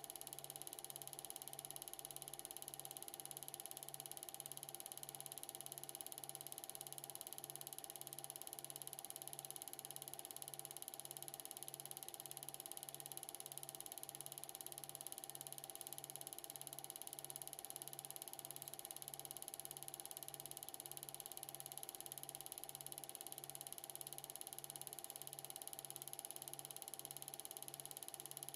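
Film projector running steadily: a quiet mechanical whirr and clatter with a constant high whine and a low hum that pulses evenly a little under one and a half times a second.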